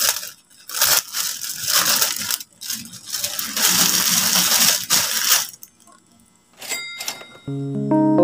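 Thin plastic polybag crinkling and rustling in repeated bursts as a T-shirt is worked out of it, stopping after about five and a half seconds. Near the end, a short chime and then piano notes of background music come in.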